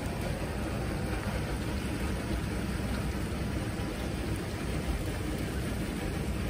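Steady, even rushing noise, heaviest in the low range, with no distinct events: outdoor ambience of water running into a hot-spring pool and wind on the microphone.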